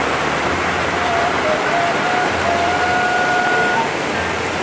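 Heavy rain falling steadily, a dense even hiss. A thin, held tone sounds faintly over it for about three seconds in the middle.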